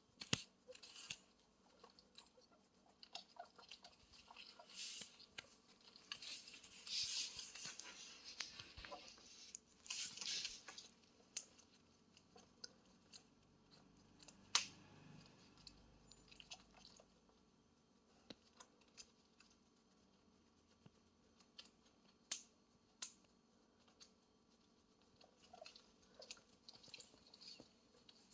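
Guinea pig chewing and nibbling food: faint crunches and small clicks, with a couple of short bursts of rustling in the first half.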